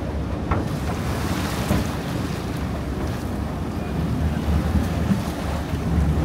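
A river boat under way: its engine running with a steady low drone, water rushing along the hull, and wind buffeting the microphone.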